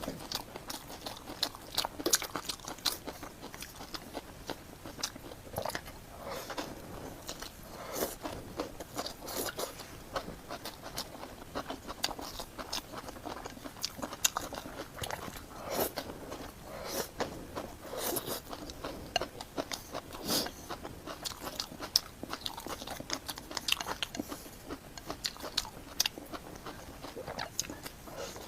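Close-miked eating: a person chewing and biting food, with many short, irregular clicks and crunches.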